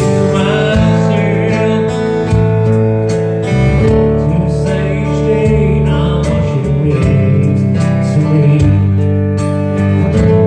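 A man singing a slow country ballad to his own acoustic guitar, the Takamine guitar strummed and picked under the voice.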